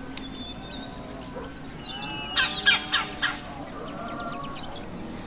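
Wild birds calling and chirping, with a cluster of louder, harsh calls about two and a half to three seconds in.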